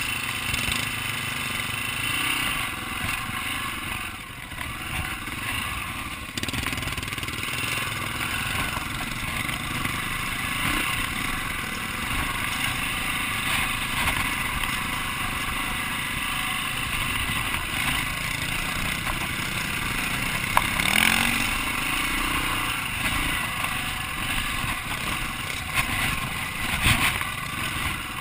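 Dirt bike engine running while riding a rocky singletrack trail, with a brief rise in revs and a sharp knock a little after two-thirds of the way through.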